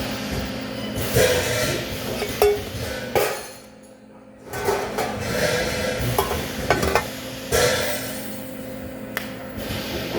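Metal clinking and knocking, several sharp knocks among stretches of noise, over a steady hum, with a brief quieter gap about four seconds in.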